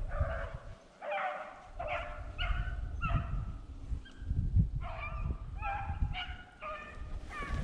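Beagle pack baying while running a rabbit: a string of short, steady-pitched barks, about two a second, with a brief lull about a second in. Low rustle and wind noise from walking through the brush underneath.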